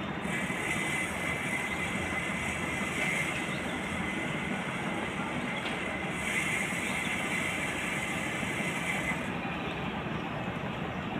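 Combine harvester's engine running steadily, with a higher whine and hiss that rise over it twice, each for about three seconds.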